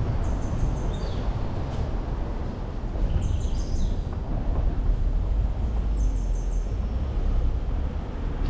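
Road noise from a car driving through city traffic: a steady low rumble of engine and tyres, with short runs of high chirps a few times.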